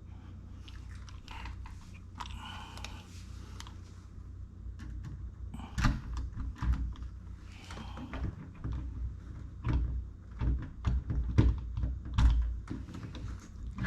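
Handling sounds of a door lock's parts being fitted to the door: soft rustling at first, then a run of sharp clicks and knocks from about halfway in, over a steady low hum.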